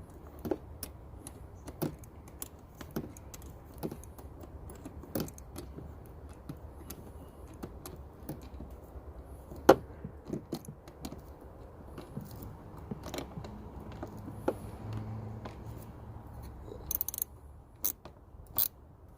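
Irregular light clicks, taps and rattles of small parts and tools being handled while something is tightened by hand. There is one sharp knock about ten seconds in and a quick run of clicks near the end, over a faint steady low hum.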